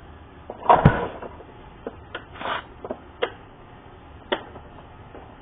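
Bissell PowerForce Helix upright vacuum cleaner being handled to take off its brush plate: a loud clunk about a second in, then several sharp clicks and a brief scrape.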